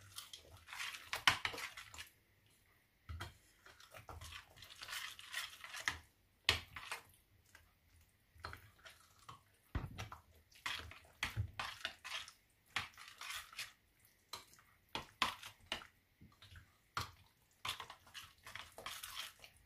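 Metal spoon stirring a thick yogurt and cucumber tzatziki in a bowl: wet scraping with irregular clicks of the spoon against the bowl.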